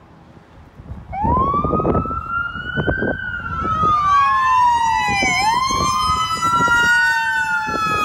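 Siren of an approaching fire department heavy rescue truck, a 2017 Rosenbauer Commander, starting about a second in and wailing in slow sweeps up and down, with more than one siren tone overlapping.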